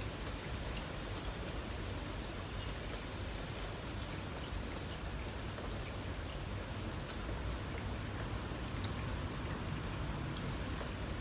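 Light rain falling steadily, with scattered drops ticking, and a faint steady high insect trill behind it.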